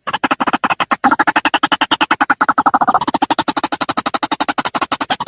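White-breasted waterhen (ruak-ruak) calls played as a bird-trapping lure: a fast, rhythmic run of harsh repeated notes, about a dozen a second, without a break.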